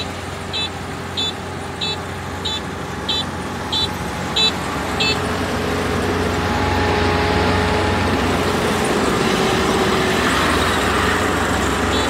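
Kubota DR472 combine harvester's 72-horsepower engine running steadily, with a high electronic beeper sounding about one and a half times a second. The beeping stops about five seconds in, and the machine then runs a little louder.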